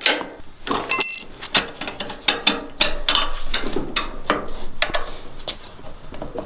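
Ratchet wrench clicking in short strokes on the go-kart's front shock mounting bolts, with metal-on-metal knocks and a brief metallic ring about a second in.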